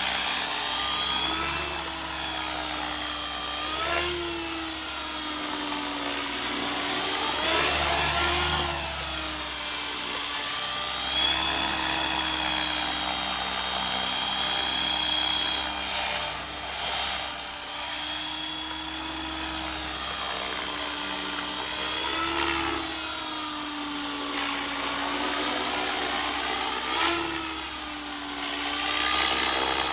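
Align T-Rex 500 radio-controlled electric helicopter with a Scorpion brushless motor in flight: a steady high-pitched whine with the rotor's whir, the pitch briefly rising and falling back several times as it manoeuvres.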